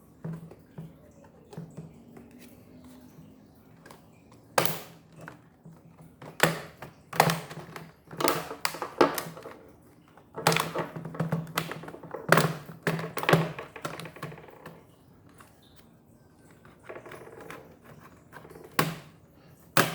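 Plastic clips of a laptop's bottom case snapping loose one after another as the case is pried open with a pry card, a string of sharp clicks and cracks, busiest in the middle.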